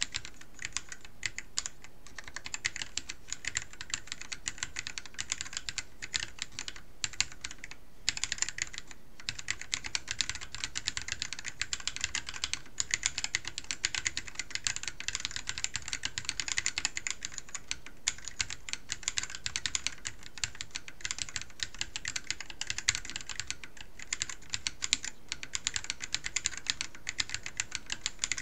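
Fast, continuous typing at about 80 words a minute on a small mechanical keyboard with Akko Rose Red linear switches in a solid 3D-printed case (100% infill). The keystrokes come in a dense, even stream, broken only by a couple of brief pauses about eight and nine seconds in.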